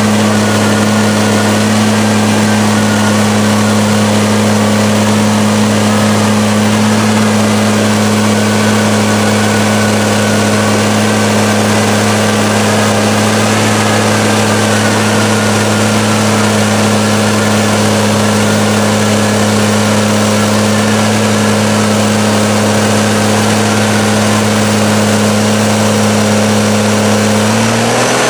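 Dodge Ram monster mud truck's engine held hard at a constant pitch as the truck churns in a mud bog, a loud steady drone with a faint wavering whine above it.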